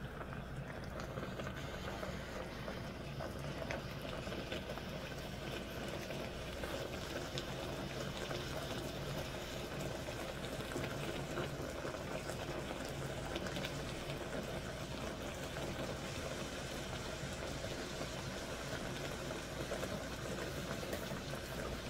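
A pot of vegetables frying in tomato pasta sauce, with no water added yet, sizzling and bubbling steadily with faint scattered pops.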